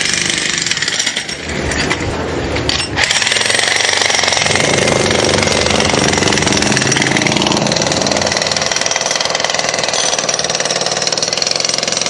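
Jackhammer breaking masonry with a rapid, continuous hammering. It eases briefly about a second in and picks up again steadily from about three seconds in.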